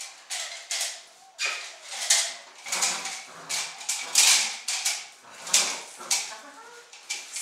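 A rag tug toy swished and dragged across a concrete floor in about a dozen short, irregular scraping sweeps, with a Malinois puppy scrabbling after it.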